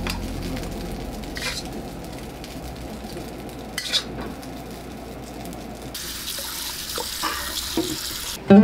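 Tap water running into a wok in a kitchen sink, a steady rushing splash that starts about six seconds in and stops just before the end. Before it, a faint steady hiss with a couple of light clinks.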